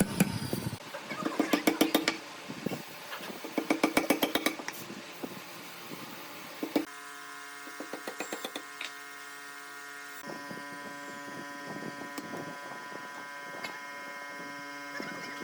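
Workshop tool noise: two bursts of rapid clatter in the first five seconds, then a steady hum with a few light knocks.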